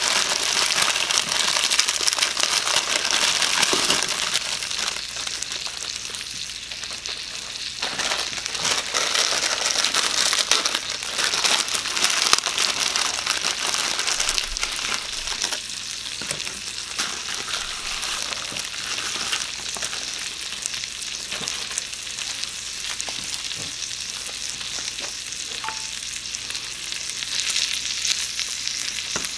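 Bacon-wrapped sausages sizzling on a hot electric cooking plate: a steady crackling fry with scattered sharp pops, along with occasional crinkling of ramen packets being opened.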